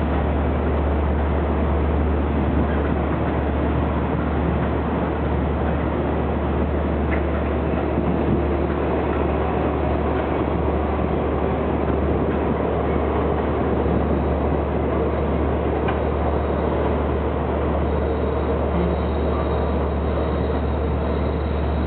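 Diesel-hauled commuter train departing a station, a steady, unbroken rumble as the train runs by.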